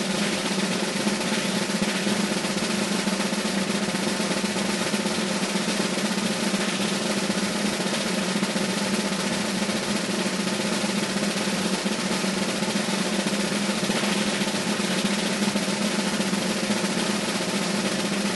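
A continuous snare drum roll, steady and unbroken.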